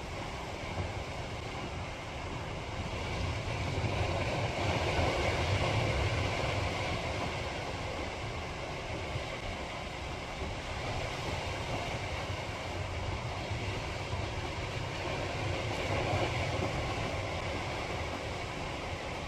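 Surf washing onto the shore over a steady rushing noise. It swells louder twice, about four seconds in and again around sixteen seconds.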